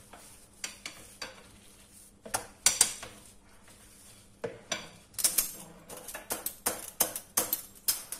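Long, thin wooden rolling pin rolling out dough on a granite countertop, knocking and clicking against the stone. A few scattered clicks come first, then a quicker run of about four a second in the second half.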